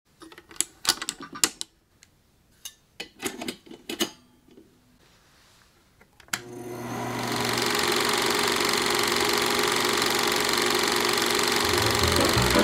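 Bell & Howell film projector: clicks and clatter as it is handled, then a switch clicks about six seconds in and the motor starts, building within a second to a steady mechanical whirr and clatter of the running projector. A low musical beat comes in near the end.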